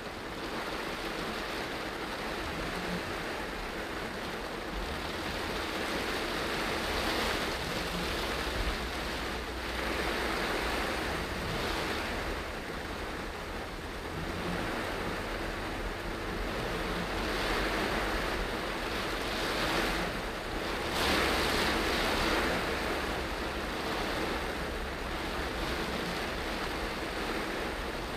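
Heavy rain drumming on a car's roof and windscreen, with tyres hissing on the flooded road, heard inside the cabin as a steady rushing noise that swells and eases every few seconds.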